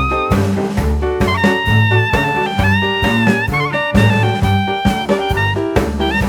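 Upbeat jazz-swing background music: a brass or saxophone melody holding long notes over a steady bass and drum beat.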